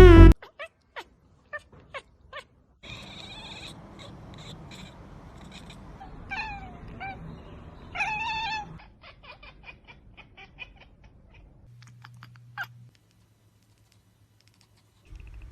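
Domestic cat meowing twice, a short call falling in pitch and then a longer one, over a faint steady background, with scattered light clicks around them. Loud music cuts off just at the start.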